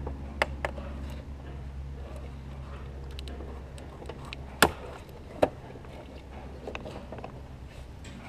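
Plastic wiring-harness connectors being worked loose from engine sensors by hand, giving a few short sharp clicks and knocks, the loudest about four and a half seconds in, over a low steady hum.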